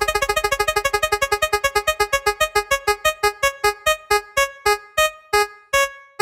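Spin-the-wheel sound effect: a run of short electric-piano-like notes, one per tick of the wheel, starting at about ten a second and slowing steadily to about two a second as the wheel winds down to a stop.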